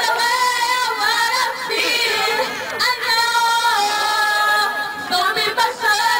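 Women singing into stage microphones, amplified, in a run of long held notes.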